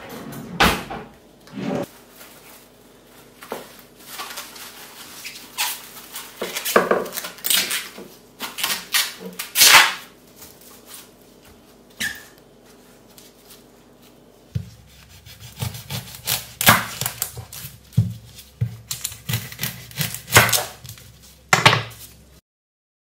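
Plastic cling film crinkling and rustling in sharp crackles as gloved hands stretch it over a steel bowl. From about two-thirds through, an onion is handled and cut on a wooden chopping board: knife knocks and thunks on the board with papery skin crackling.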